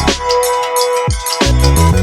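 Background electronic music with a steady drum beat and deep bass hits.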